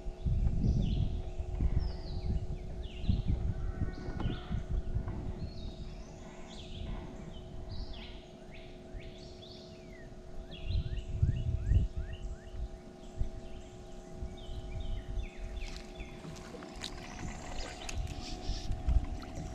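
Many birds chirping and calling over a faint steady hum, with low rumbles and knocks, loudest near the start and about halfway through.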